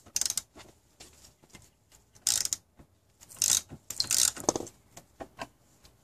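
Socket ratchet clicking in several short runs while loosening the 14 mm bolt that anchors a car seat belt buckle to the seat frame.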